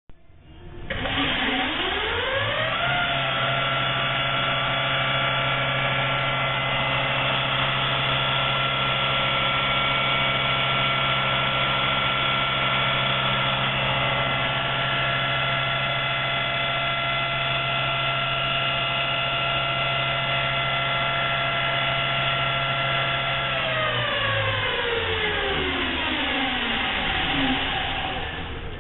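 Precision high-speed lathe spindle spinning up with a rising whine, running steadily at about 4000 rpm with a low hum beneath, then winding down with a falling whine near the end.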